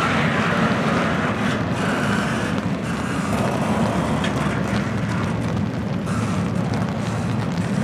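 Double-stack intermodal container train rolling past: a steady rumble of the well cars' steel wheels on the rails, with a few faint knocks.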